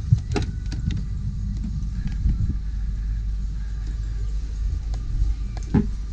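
Handling rumble from a handheld camera as someone climbs carpeted stairs, with a few knocks of footfalls or bumps: two about half a second in and one near the end.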